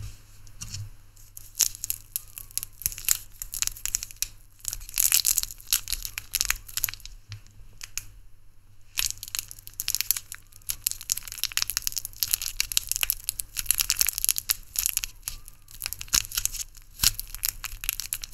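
Close-up crinkling and crackling of a small wrapper being worked at by hand while trying to open it, with a short pause about halfway through.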